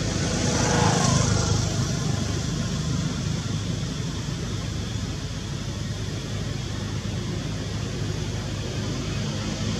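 A motor vehicle going by, its engine note falling in pitch about a second in, then a steady low hum.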